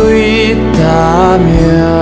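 Background music: a ballad, with a sung vocal line over steady instrumental accompaniment.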